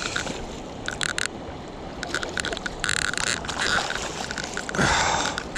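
River water running, with short splashes and clicks every second or so.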